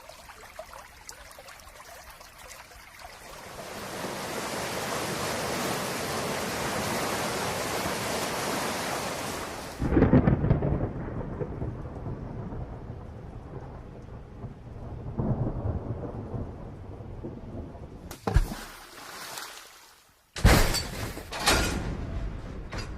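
Thunderstorm sound effect: steady rain swelling up, then a loud thunderclap about ten seconds in that rumbles on for several seconds. Near the end come a few loud, sharp crashes of another kind.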